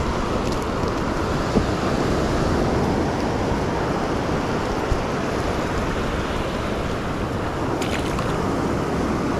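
Ocean surf washing up the beach in a steady rush, with wind on the microphone.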